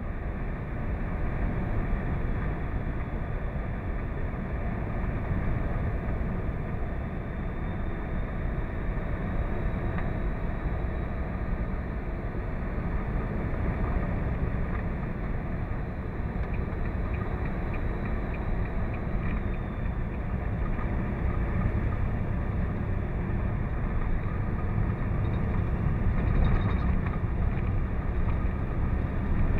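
Steady engine, tyre and wind noise inside a semi-truck's cab cruising at highway speed.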